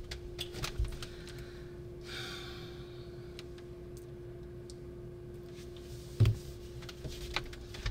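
Quiet indoor sound: a steady faint hum under scattered light clicks and knocks, a brief rustling swish about two seconds in, and a single louder thump about six seconds in.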